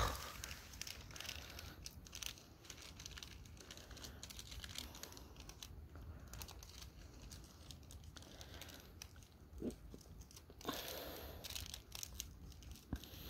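Faint, irregular rustling and crackling, with a sharp click at the very start and a brief louder rush of noise about eleven seconds in.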